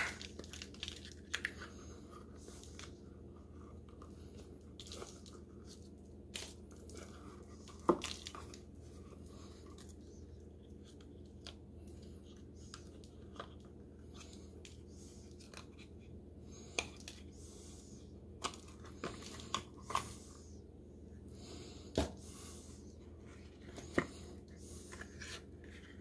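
Hands flexing a silicone mold to demold a cured Cement All casting: scattered sharp clicks and taps, with soft peeling and rustling between.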